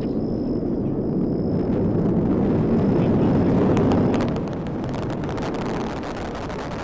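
Delta IV rocket's RS-68 main engine and two solid rocket motors during ascent: a deep, crackling rumble that grows louder about three seconds in and eases off a little after four seconds.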